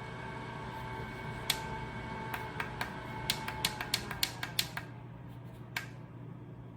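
WSKEN battery desk fan running with a steady whirr and whine while its button is clicked about fifteen times in quick succession. The fan then slows, and its airflow hiss and whine drop away about five seconds in.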